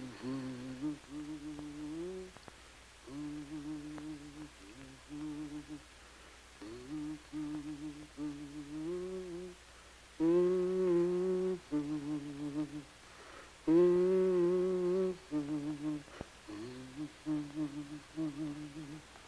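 A woman humming a slow tune in phrases of held notes with short gaps between them, two phrases about halfway through louder than the rest.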